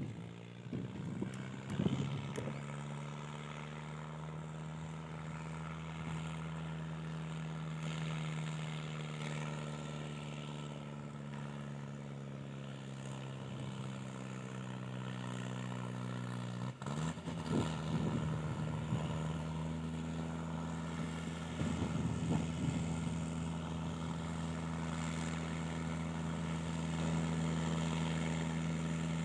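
Mahindra Arjun 605 tractor's diesel engine running at a steady pace while pulling a heavily loaded sugarcane trolley, with a brief break about halfway through and a few short rattling knocks after it. The engine grows slightly louder near the end as the tractor draws closer.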